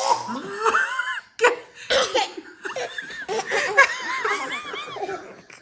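Toddlers giggling and laughing, a run of high, rising-and-falling peals, with a couple of short sharp sounds about a second and a half and two seconds in.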